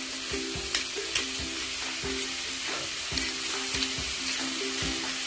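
Diced carrots and chicken sizzling in oil in a wok, with a few sharp clicks as a hand pepper mill grinds black pepper over the pan. Soft background music plays underneath.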